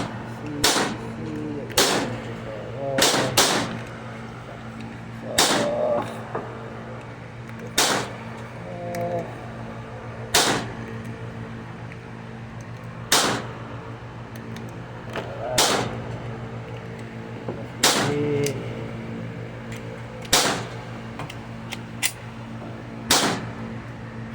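Gen 5 Glock 26 9mm pistol firing about a dozen single shots, a few quickly early on, then spaced roughly two to three seconds apart, over a steady low hum.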